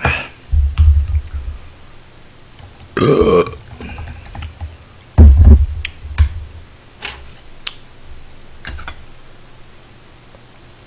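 A man's loud burp about three seconds in, between heavy low thuds, the loudest near the start and again about five seconds in. Later come several light clicks of a metal spoon against dishes.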